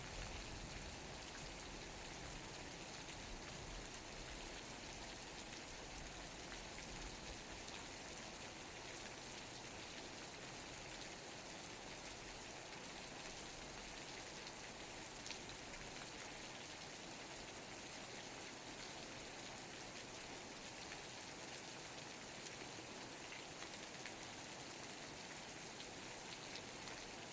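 Steady rainfall: an even hiss of drops with the odd sharper single drop tick. A low rumble dies away in the first few seconds.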